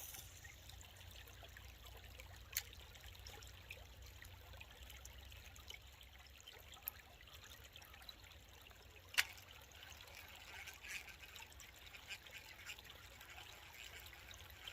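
Faint trickling of running water, with two sharp clicks, about two and a half and nine seconds in.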